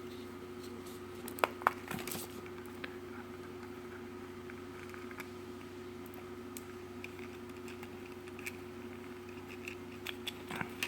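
Light plastic clicks and scratching as a GM keyless-entry remote's case is handled and opened, with a couple of sharper clicks about one and a half to two seconds in. A steady low hum runs underneath.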